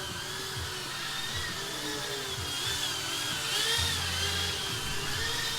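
Small FPV racing quadcopters flying, their motors and propellers whining high, the pitch wavering up and down as the throttle changes.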